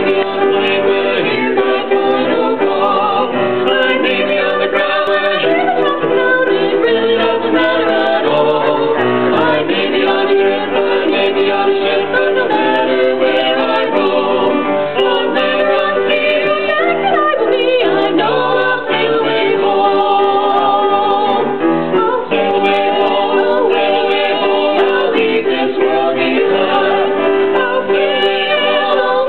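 Gospel vocal quartet of two men and two women singing together in harmony, amplified through handheld microphones and a PA.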